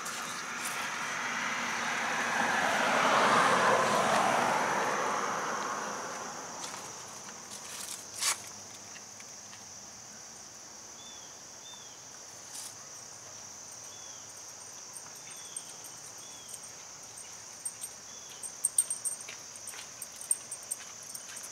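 Steady high chirring of insects, with a vehicle passing in the first several seconds, its sound swelling to a peak and fading away.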